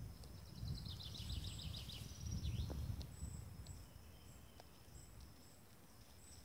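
Rural outdoor ambience. A bird sings a quick run of high chirps that falls in pitch between about one and three seconds in, over a steady high hum of insects and a low rumble that is loudest around two to three seconds in.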